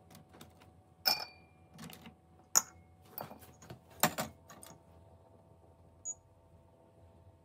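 Sharp clinks and taps of a drinking glass being handled, a sugar cube dropped into it, and the glass set on the stainless drip tray of a Philips LatteGo espresso machine, one clink ringing briefly. A faint steady hum comes in about four seconds in, and a short high beep sounds as the machine's button is pressed.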